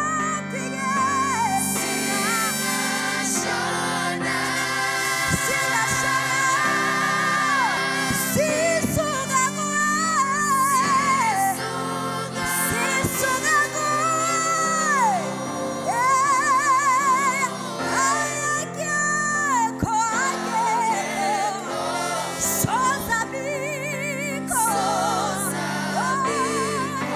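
Gospel music: a woman singing long held notes with a wide vibrato over a steady instrumental accompaniment.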